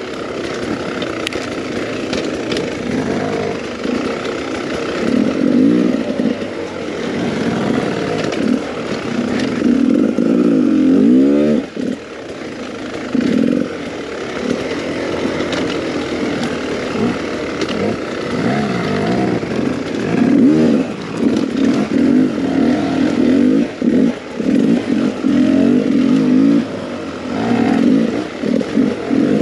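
A Beta 300RR two-stroke enduro motorcycle engine revving up and down as the throttle is worked over rough ground. Partway through there is one long rise and fall in revs.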